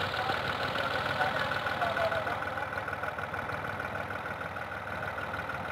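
Fiat 480 tractor's three-cylinder diesel engine running steadily at low speed.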